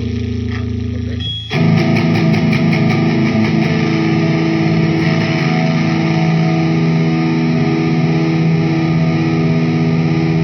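Electric guitar played with high-gain distortion through a Marshall Vintage 30 cabinet simulation. A held low chord gives way, about a second and a half in, to a quick flurry of picked strokes and then loud chords that ring out.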